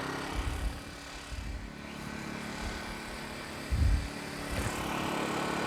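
Harbor Freight Predator 1400 inverter generator running steadily with eco mode off, heard close up, with a steady hum. Low thuds come about half a second in and again near four seconds.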